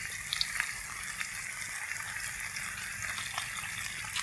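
Chopped garlic and shallots frying in hot oil in a wok with a little curry powder: a steady sizzle with scattered small pops and crackles, the aromatics cooking toward golden.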